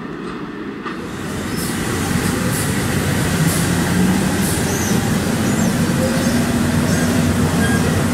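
Trenitalia E444R electric locomotive pulling an Intercity train out of the station, its motors humming with a slowly rising tone over the rumble of wheels on rail as it gathers speed. The first second holds a quieter, more distant freight train.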